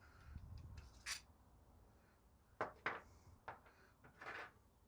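A few faint, sharp clicks and knocks spread over several seconds, small hardware parts being handled and set down.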